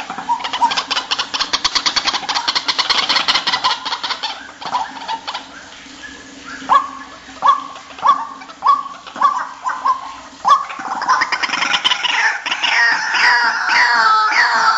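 White-breasted waterhens (ruak-ruak) calling: a rapid rattling chatter, then a string of short falling notes about one a second, building near the end into a loud run of many overlapping falling calls.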